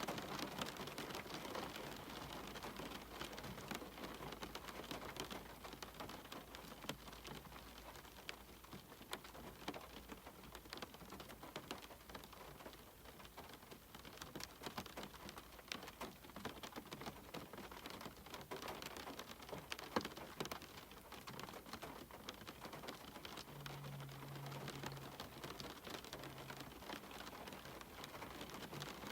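Faint steady rain, with many small scattered ticks of drops.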